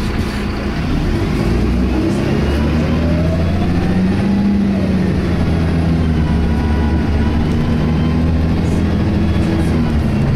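Optare Tempo single-deck bus heard from inside, its diesel engine pulling harder about a second in while a whine from its Allison automatic gearbox glides up and then back down, a sound the uploader likens to a Voith gearbox.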